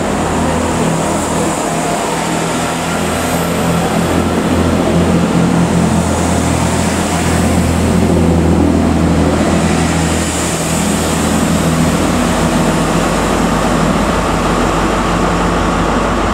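Class 166 Networker Turbo diesel multiple unit departing, its underfloor diesel engines running under power as the three coaches accelerate past and away.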